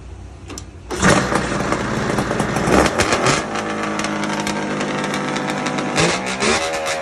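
A 1972 Ski-Doo TNT Blizzard 645cc snowmobile's two-stroke engine fires up about a second in, runs unevenly with a few revs, then settles to a steady idle. Near the end the throttle is blipped once, with a brief rising rev.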